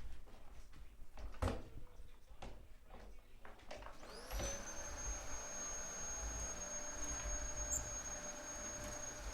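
A few knocks and clatters, then about four seconds in a vacuum cleaner switches on: its motor whine rises quickly and settles into a steady high whine.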